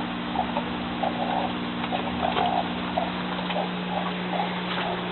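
Steady hum of an aquaponics system's 1000 GPH water pump, with water trickling and splashing in a small irregular patter.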